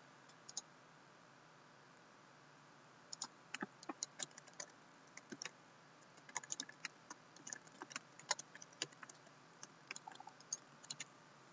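Typing on a Lenovo laptop keyboard: faint scattered key clicks in quick runs, starting in earnest about three seconds in after a brief pause.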